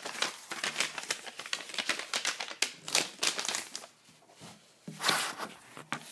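Crinkling and rustling of something handled close to the microphone, in dense irregular crackles, with a short lull and then another burst about five seconds in.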